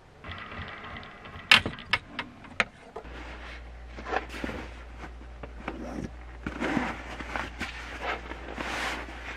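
Rustling of the slippery nylon shell of a puffy sleeping bag and its strapped stuff sack as they are handled, over a steady low hum. A few sharp clicks or knocks come just before, about one and a half to two and a half seconds in, and they are the loudest sounds.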